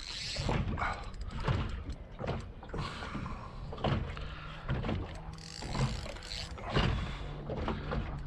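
Wind buffeting the microphone in a low rumble, broken by irregular knocks and rattles.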